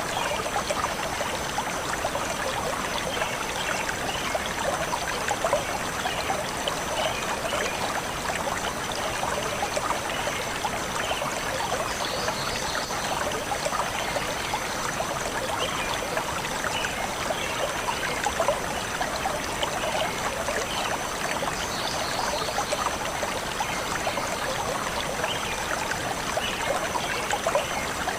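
A small forest stream flowing and trickling steadily over stones, with a few faint bird chirps now and then.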